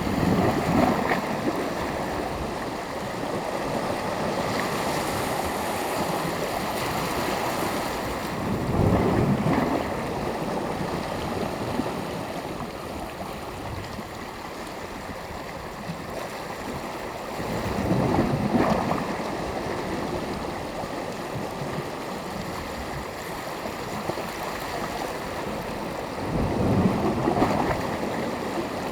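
Sea waves breaking on the shore over a steady wash of surf, with a louder surge about every nine seconds.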